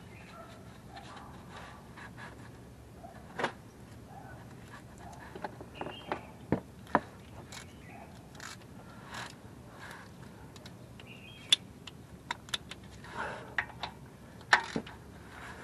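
Scattered metallic clicks and clinks of a socket ratchet being fitted to and turned on the engine oil drain plug as it is refitted after draining, with a few sharp clicks in the last few seconds.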